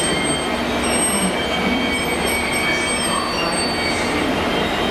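Class 66 diesel-hauled steel coil train pulling slowly out, its wagons rolling by with a steady high wheel squeal over a continuous rumble.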